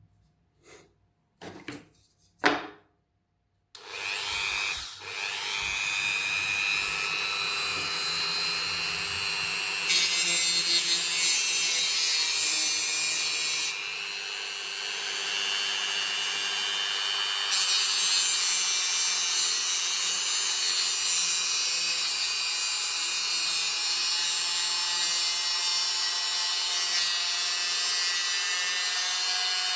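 A few short clicks, then a small high-speed electric rotary tool starts about four seconds in with a rising whine and runs steadily against material, grinding with a dense hiss that swells and eases a few times.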